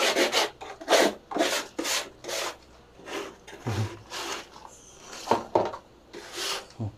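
Irregular rasping scrapes, a dozen or so, of dry lumps of snake droppings being scraped and gathered by hand across a concrete floor.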